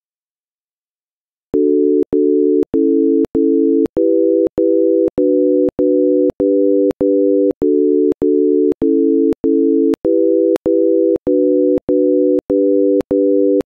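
Software-synthesized chords of three plain electronic tones, played one after another as about twenty short, equal chords at just under two a second, with a click at the start and stop of each. They form a D-major progression, each chord sounded twice: D, A, E minor, B minor, G, then again.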